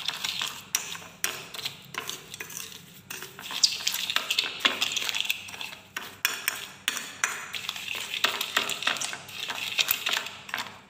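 Metal spoon scraping and clicking rapidly against a glass plate as it beats instant coffee, granulated sugar and cold water by hand for dalgona coffee. The strokes are fast and irregular, several a second.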